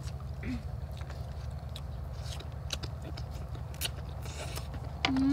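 People eating noodles with chopsticks: chewing, slurping and mouth sounds, with scattered small clicks and taps over a steady low hum.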